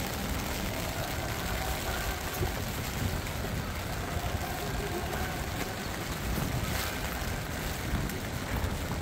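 Typhoon wind and rain: gusts buffeting the microphone as an uneven low rumble over a steady hiss of rain.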